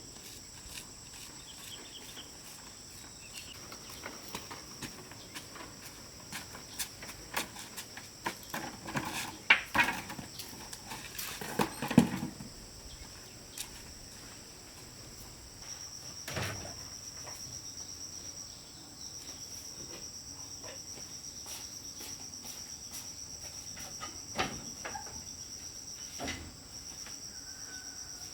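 Insects trilling steadily with a high, continuous buzz, joined about halfway through by a second, pulsing trill. In the middle comes a cluster of knocks and rustles from handling something, the loudest of them around twelve seconds in.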